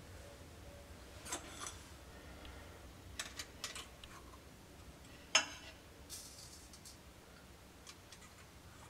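Scattered light clicks and taps from hands working an analytical balance's glass draft-shield door and handling the weighing container inside it, the sharpest click about five seconds in, over a faint steady low hum.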